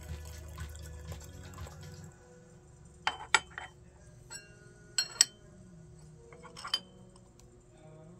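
Liquid being poured into teaware for about two seconds, then about five sharp ringing clinks of cups and vessels being set down and knocked together.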